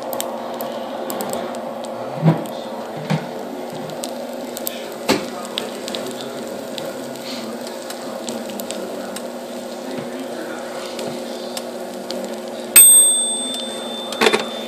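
Eggs sizzling on the perforated pan of a Pizzazz rotating pizza oven, over a steady low hum with scattered small clicks and crackles. Near the end, a single loud bright ding rings out and fades.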